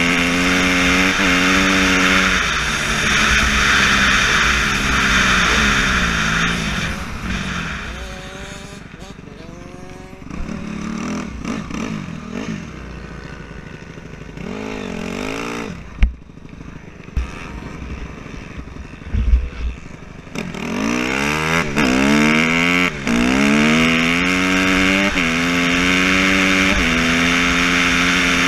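Honda CRF250R four-stroke single-cylinder dirt bike engine at speed, with wind noise on the helmet. The revs fall away as the bike slows, and it runs at low, wavering revs with a couple of low thumps. It then accelerates hard, pitch climbing and dropping through several gear changes, and settles into steady high revs near the end.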